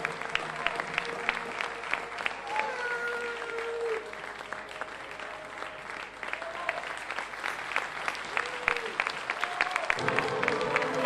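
Theatre audience applauding, with scattered individual claps and a few voices calling out over them. A louder, denser pitched sound, like music or voices, comes in near the end.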